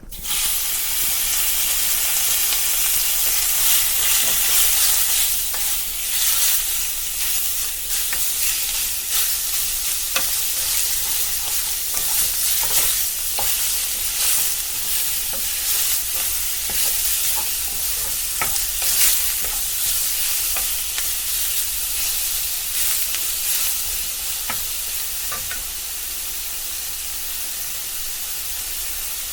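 Food being stir-fried in a hot pan: steady sizzling with scattered sharp clicks and scrapes from the stirring. It grows a little quieter near the end.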